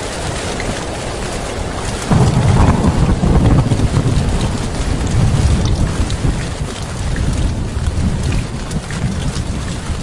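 Heavy rain falling steadily. About two seconds in, a deep rumble of thunder breaks in suddenly and rolls on for several seconds, slowly fading.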